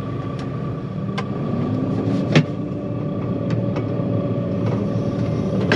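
John Deere 9500 combine's diesel engine running steadily, its pitch rising for about a second a couple of seconds in. A sharp click comes just after the rise, with fainter scattered clicks.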